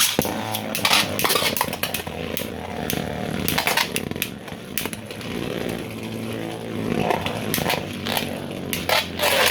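Two 3D-printed plastic Beyblade tops spinning and battling in a stadium. A steady whirring starts suddenly and is broken by many sharp clacks as the tops collide.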